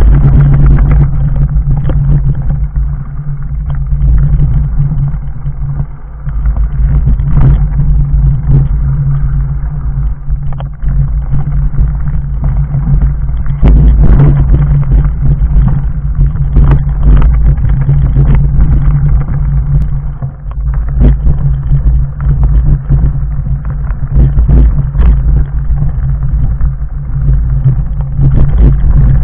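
Fat bike on 4-inch off-road tyres riding over a rough, rocky trail. A loud steady rumble of vibration runs throughout, broken by frequent sharp knocks and rattles as the tyres strike loose stones.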